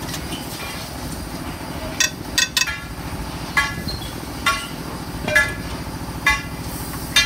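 Sharp metallic clinks of a long-handled wrench working bolts on a Hino 1J truck engine's cylinder head: a quick cluster about two seconds in, then single ringing clinks roughly once a second. A steady low engine rumble runs underneath.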